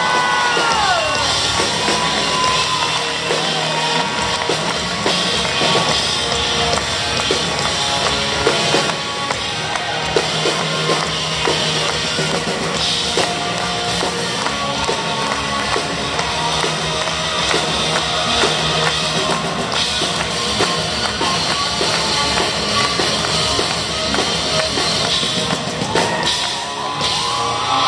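Live rock band playing an instrumental passage: electric guitar, electric bass and drum kit, heard from the audience.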